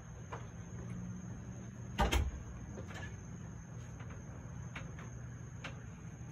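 Handling knocks on a handheld phone: a few faint clicks and one louder knock about two seconds in, over a steady low hum and a thin steady high tone.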